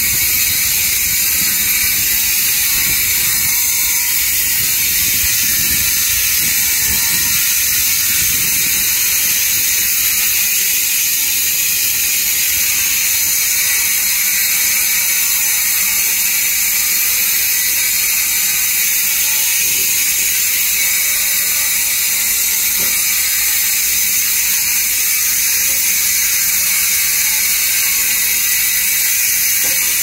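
Electric angle grinder with a diamond cutting disc running and cutting into a concrete step: a steady, loud, high-pitched grinding.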